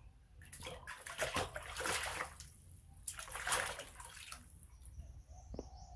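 Water sloshing and splashing in a plastic basin as a young monkey paddles its hands through it, in two spells: one about half a second in and one about three seconds in.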